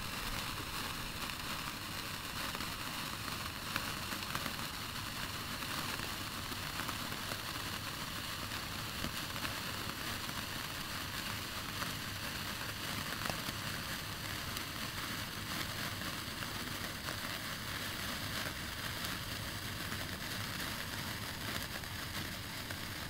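Five Keller sparklers (Wunderkerzen) burning together: a steady fizzing hiss full of tiny crackling pops.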